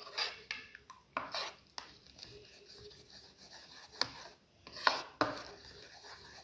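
A spoon stirring thick batter in a bowl, scraping and knocking against the sides in irregular strokes as the batter is mixed smooth. A few sharp clacks come about four to five seconds in.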